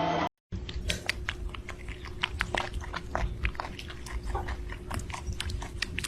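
A pet animal chewing: irregular crisp crunching clicks, several a second, over a faint steady hum.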